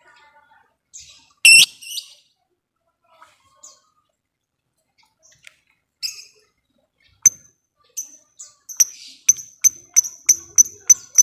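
Lovebird calling: scattered sharp chirps, one loud one about a second and a half in. From about eight seconds it gives a steady run of sharp ticking chirps, about three a second, the "ngetik" call.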